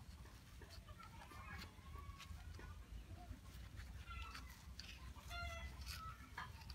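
Chicken clucking, a few short calls about four to five and a half seconds in, over faint scattered taps and scrapes.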